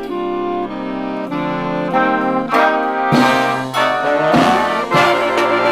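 Marching band with trumpets and trombones playing held brass chords that change every half second or so. The chords swell louder about two seconds in, with a few heavy drum hits.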